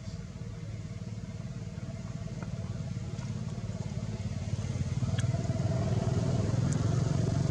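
A motor vehicle engine, like a passing motorcycle, running steadily as a low rumble that grows louder over the second half.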